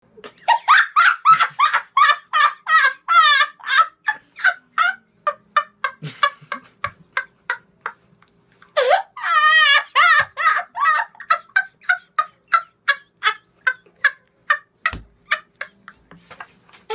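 A man's high-pitched cackling laugh, a rapid run of about four cackles a second. It breaks off for about two seconds, then starts again in a second long fit.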